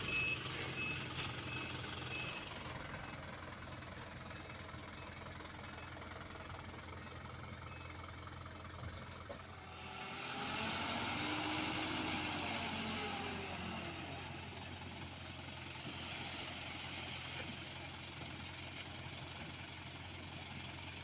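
Diesel engines of heavy road-paving machinery running steadily, with a reversing alarm beeping over the first couple of seconds and then fading. A machine draws near and moves away again from about ten to fourteen seconds in, its engine pitch rising and then falling.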